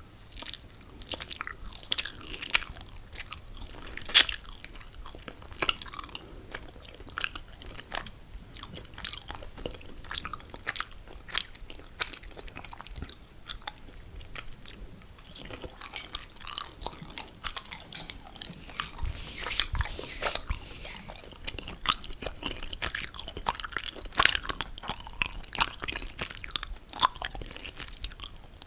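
Close-miked chewing of mochi: a continuous run of wet, sticky mouth clicks and smacks as the soft, chewy rice cake is bitten and worked.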